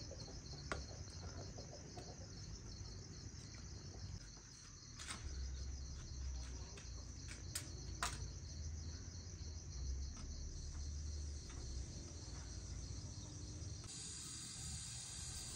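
Crickets chirping steadily in a continuous high chirr, with a few light clicks. Near the end a gas burner's hiss joins in.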